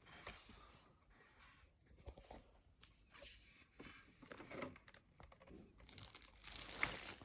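Faint handling noise: light rustles and small clicks of plastic being moved, getting a little louder near the end.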